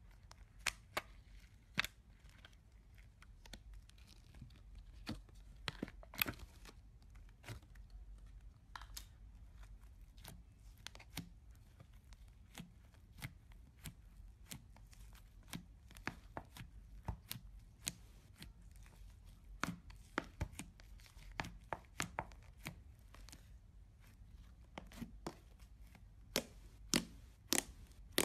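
Fingers poking, pinching and pressing thick pink slime, giving sharp irregular pops and clicks as air pockets burst. The pops come thickest and loudest near the end.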